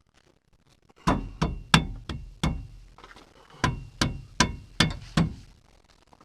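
Hammer striking steel with a slight ring, two runs of about five blows each, the first starting about a second in and the second near the middle. The blows fit knocking the new welded steel crossmember into place in the frame.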